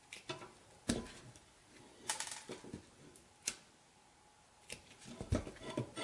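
Wire strippers biting and pulling the insulation off the ends of 14-2 cable conductors: a string of irregular sharp clicks and short scrapes.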